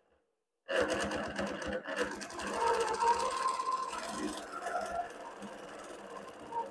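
Innova Classic 22-inch longarm quilting machine stitching, starting suddenly after a short silence with a rapid patter of needle strokes over a wavering motor hum.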